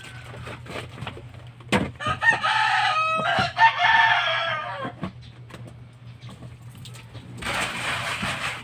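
A rooster crows once, a long call of about three seconds, just after a single sharp knock. Near the end comes about a second of hiss-like noise.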